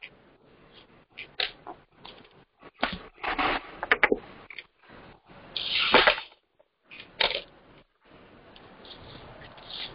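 Handling noise on a phone's microphone: irregular rustles, knocks and short bursts of hiss, the longest about six seconds in.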